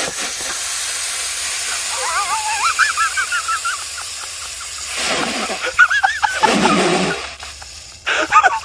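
Cola fizzing and hissing as Mentos-driven foam forces out of a Coca-Cola bottle held to a man's mouth, spraying out around his lips. The hiss is steady for the first four seconds or so and then fades. People's voices break in over the second half.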